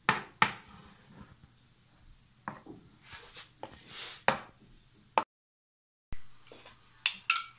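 A metal knife and spoon clicking, tapping and scraping against a wooden board and the cake as cream is spread over it: scattered sharp knocks, a moment of dead silence just after the middle, then two more clicks near the end.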